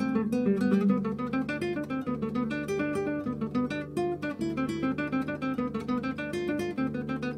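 Background music played on a quickly plucked and strummed acoustic guitar, with a steady run of notes.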